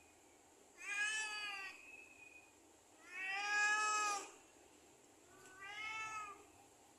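Domestic cat meowing three times, each meow about a second long with a slight rise and fall in pitch; the middle one is the longest and loudest.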